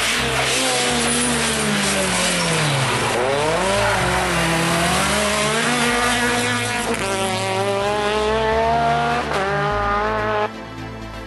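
Rally car engine at full stage speed: its pitch drops as it slows for a bend about two seconds in, then rises again and again as it accelerates hard up through the gears. The car sound cuts off suddenly near the end, over music with a steady bass line.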